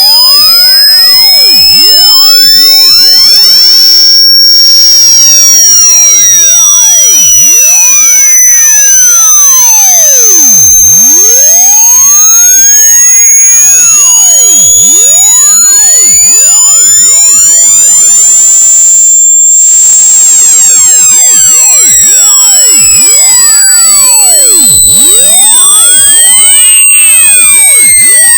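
A loud, high-pitched electronic test tone rising slowly and steadily in pitch, with fainter tones sweeping up and down beneath it.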